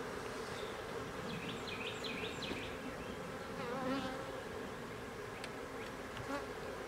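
Honeybees from a nuc colony buzzing in a steady hum while a frame covered in bees is lifted out and set into a hive.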